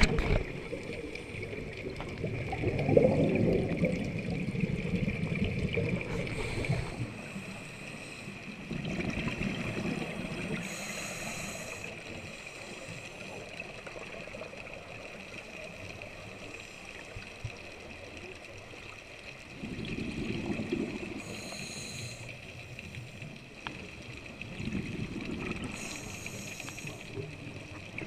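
Scuba diver's breathing on an underwater camera: exhaled regulator bubbles gurgling in about four surges several seconds apart, over a steady high-pitched tone.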